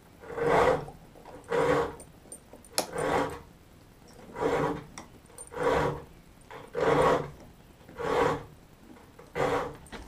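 Block plane taking repeated strokes along the edge of an oak saw-vise jaw, eight short rasping passes about one every second and a bit, rounding over the edge.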